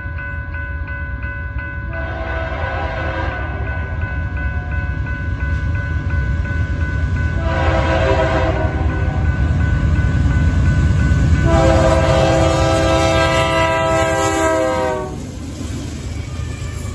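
Diesel locomotive's Nathan K3LA air horn sounding three blasts for the grade crossing, the last one long and dropping in pitch as the locomotive passes. The deep rumble of the GE Dash 9-C44CW and its train grows louder beneath the horn, with a crossing bell ringing at the start.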